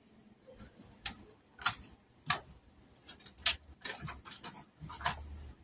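Scattered light clicks and taps as hands handle circuit boards and cable connectors inside a flat-screen TV's opened metal chassis, irregular and a second or so apart, with a low hum starting near the end.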